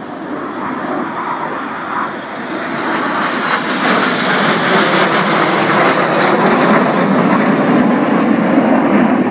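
Red Arrows BAE Hawk jets flying past low overhead in formation: a loud jet rush that grows louder from about three seconds in.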